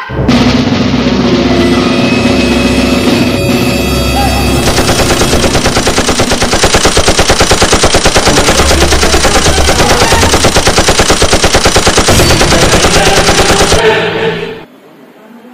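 Loud, continuous rapid machine-gun fire sound effect with music underneath, a staged gunfight sound that cuts off near the end.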